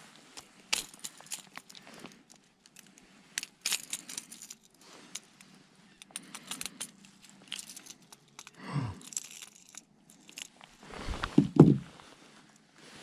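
Metal pliers clicking and scraping against a lure's hooks while unhooking a largemouth bass: a run of sharp clicks and crunches. Near the end come a swish and then a couple of heavy thumps with rustling, the loudest sounds here.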